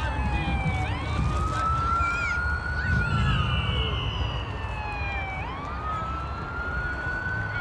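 Emergency vehicle siren on a slow wail, its pitch rising and falling twice, over a low rumble.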